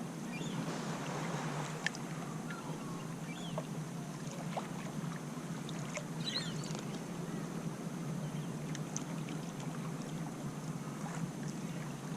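Steady outdoor noise of surf and wind at a beach, with scattered faint clicks and a few short high chirps.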